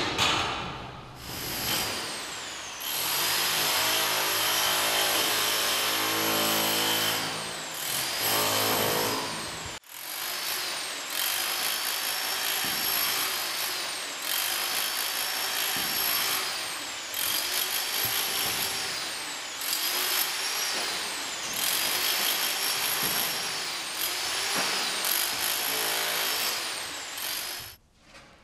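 Electric rotary hammer chiselling old plaster off a brick wall, its motor whine rising and falling every couple of seconds as the bit bites and frees. It starts a couple of seconds in, breaks off briefly near the middle, and stops just before the end.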